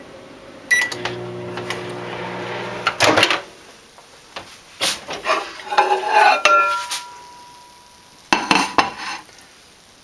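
A microwave oven's keypad beeps once, then the microwave runs with a steady hum for about two seconds and stops with a clunk. After that a plate clatters and knocks against a hard surface several times.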